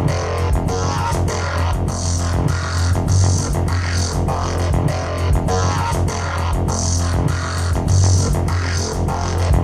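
Electronic music with a heavy bass and a fast, regular beat, played through F&D T60X tower speakers; no vocals in this stretch.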